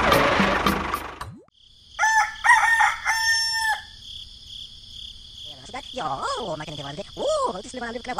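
Rooster crowing, a loud cock-a-doodle-doo about two seconds in, over a steady high chirring of crickets, with softer bending calls afterwards. Before it, a steady motor noise cuts off about a second in.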